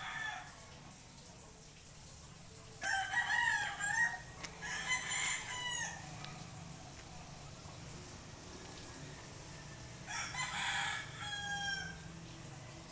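Roosters crowing: the tail of a crow at the start, two crows back to back about three seconds in, and another crow about ten seconds in.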